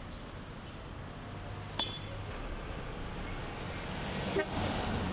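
Street traffic: a steady low rumble of vehicles, with a short metallic clink about two seconds in and a knock a little after four seconds, then a vehicle passing close by near the end.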